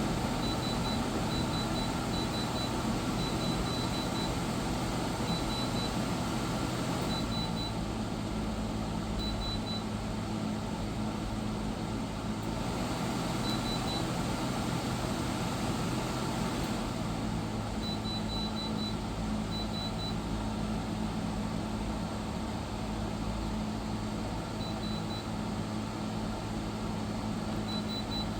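Portable air conditioner running: a steady machine hum of fan and airflow with a few steady low tones underneath.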